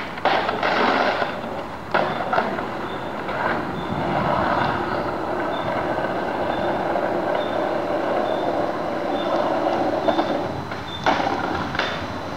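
Skateboard wheels rolling on rough street pavement, with sharp clacks and scrapes of the board from tricks near the start, about two seconds in, and again near the end.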